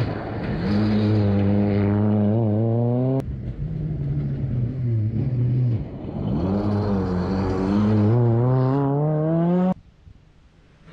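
Rally car engine revving hard as it accelerates through a gravel hairpin, its note climbing in pitch. The sound breaks off abruptly about three seconds in, dips, climbs again, then drops away suddenly near the end.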